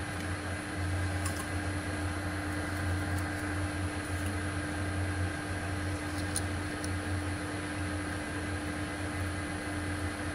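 Metal lathe running steadily at a slow spindle speed, about 235 RPM, while a high-speed steel drill bit fed from the tailstock bores into a stainless steel shaft. It gives a constant hum with a steady higher tone.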